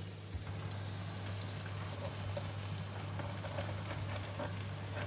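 Battered fritters frying in shallow oil in a nonstick frying pan: a steady sizzle with small crackles over a steady low hum.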